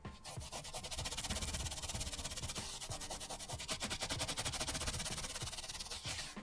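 Rapid, regular scratching or rubbing strokes, about ten a second, with soft music underneath.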